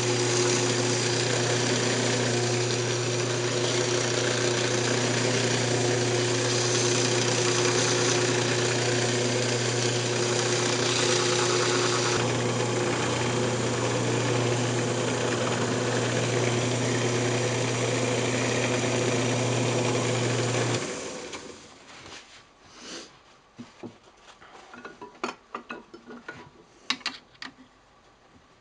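Wood lathe running steadily while the spinning maple piece is sanded with 600-grit paper and then wiped with a cloth. About 21 seconds in the motor noise cuts off suddenly, followed by light taps and clicks as the piece is handled.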